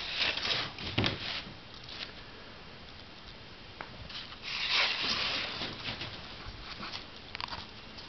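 Soft rustling handling noise in two bursts, around the start and about five seconds in, with a few light clicks and crackles between.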